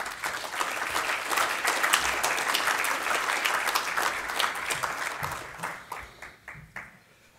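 Audience applauding: dense clapping that thins to a few scattered claps over the last couple of seconds and stops.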